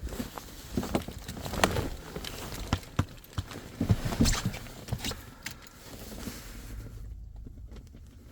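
2.0 HDi diesel engine running just after a cold start at −11 °C, with loud, irregular knocks over a low running note, the very strong cold-start knocking of a frozen diesel. The knocks thin out near the end.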